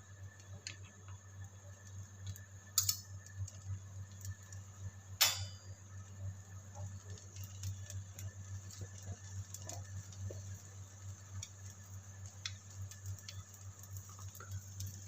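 Dosa batter cooking in butter on a hot pan: a faint steady sizzle with scattered small crackles, and two sharper clicks about three and five seconds in, over a low hum.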